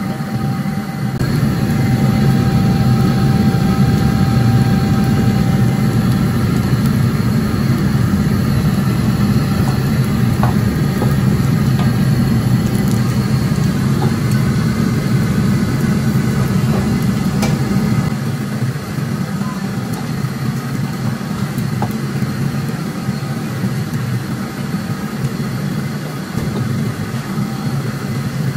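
Steady low roar of a commercial gas wok burner under a wok of frying beef, with a few light clinks of the metal ladle against the wok. The roar drops somewhat about two-thirds of the way through.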